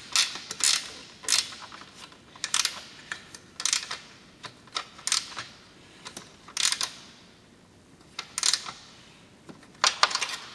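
Ratcheting wrench tightening a nut and bolt: short bursts of rapid clicks, each about a second or so apart, with a longer pause near the end.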